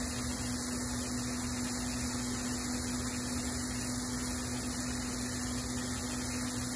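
Steady electrical mains hum, one constant low tone over an even background hiss, unchanging throughout.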